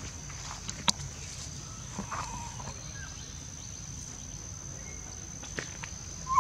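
Outdoor ambience of a steady high-pitched insect drone, with scattered small clicks and rustles and a short faint call about two seconds in.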